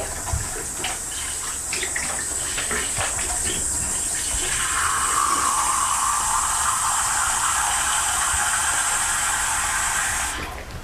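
Water running steadily from a tap, off-camera. It grows fuller about halfway through and stops abruptly near the end, as the tap is turned off.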